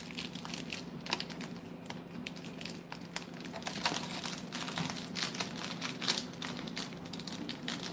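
Quiet handling noise as a gold-plated necklace is moved about in the hands: many light, irregular clicks and rustles over a steady low hum.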